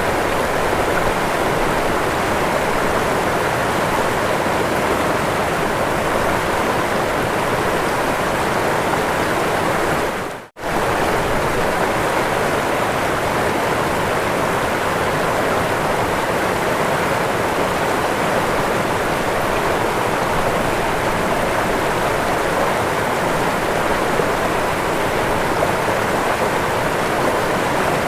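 Waterfall rushing in a steady, dense hiss of falling water. The sound fades out for a split second about ten seconds in, then comes straight back.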